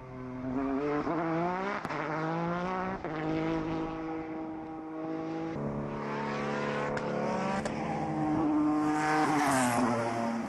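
Peugeot 208 T16 Pikes Peak race car's twin-turbo V6 at full throttle, its pitch climbing and dropping back with each upshift. Near the end it passes close by and the engine note falls in pitch.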